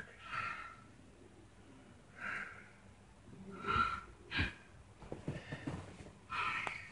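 A person's stifled laughter through the nose and mouth: a few short breathy puffs of air close to the microphone, with a soft knock about four seconds in.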